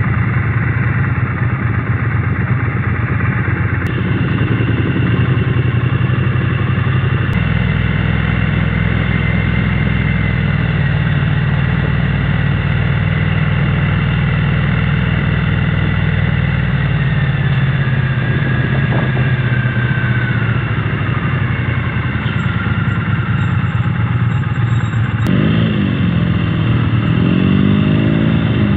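Triumph Speed Twin 900's 900 cc parallel-twin engine, on its stock exhaust, running steadily under way. Near the end the engine pitch swings up and down.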